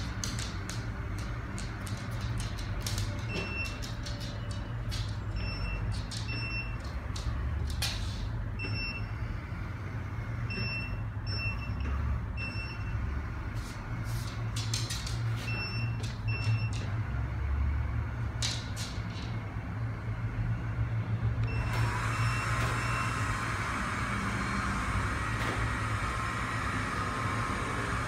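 Kalley robot vacuum running across a hard floor: a steady motor hum and brush noise, with scattered clicks and knocks and repeated short high beeps, often in pairs. About three-quarters of the way through the sound turns brighter and hissier.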